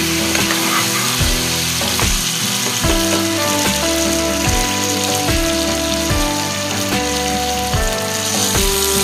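Pork pieces with tomato and spices sizzling as they fry in a wok, under instrumental background music with a steady beat.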